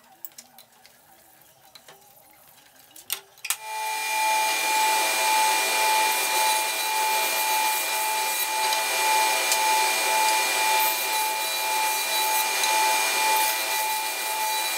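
Combination jointer-planer running and planing wood: after a few light handling knocks, the machine starts about three and a half seconds in and keeps up a loud, steady cutting noise with a constant whine.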